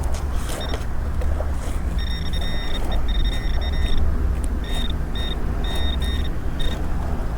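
Metal detector sounding a high-pitched electronic tone as it passes over a buried target: held in long stretches from about two seconds in, then broken into short beeps. Under it is a steady low rumble.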